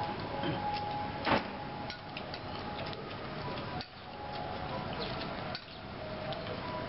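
Metal chopsticks clicking and tapping against a glass bowl and a plate during eating, with scattered light clicks and one sharper knock about a second in. Steady city background noise underneath, with a few faint held tones.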